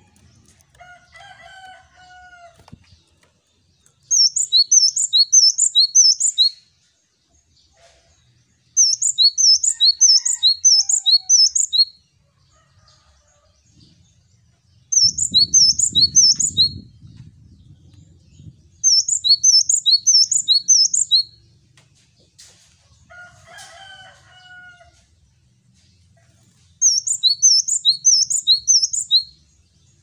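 Male cinereous tit (gelatik batu) singing: five bouts of a rapidly repeated two-note 'wucit wucit' phrase of high whistles, each bout lasting two to three seconds. Fainter, lower chirps come in the gaps.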